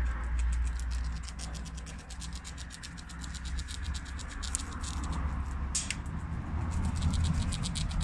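Red squirrel gnawing at food, a fast run of dry, scratchy clicks about eight a second, over a low rumble on the microphone.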